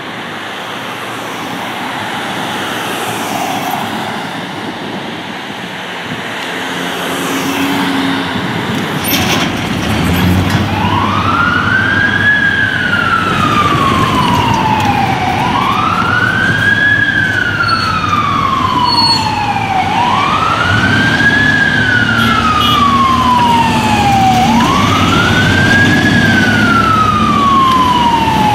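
Steady street noise, then about ten seconds in a fire engine's siren starts a wail: each cycle rises quickly and falls more slowly, repeating about every four to five seconds, over the truck's engine running.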